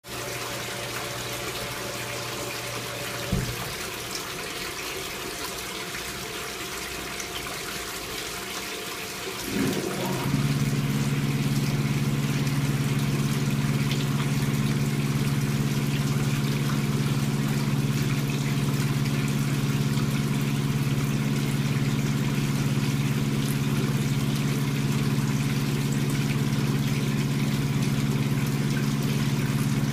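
Dirty liquid pouring and splashing from the inlet nozzles into the tank of a CMAFU-2 self-advancing paper filter, over a steady low machine hum. There is a single click a few seconds in. About ten seconds in, a louder electric motor hum starts and runs steadily.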